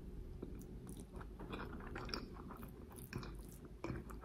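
A person chewing a mouthful of rice and stewed aubergine with dried fish: faint, close, irregular wet mouth clicks and smacks.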